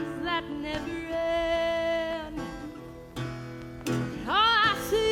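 Singing with acoustic guitar accompaniment in an old-western style: a long held sung note, a couple of guitar strums, then the voice comes back in near the end with a wavering line.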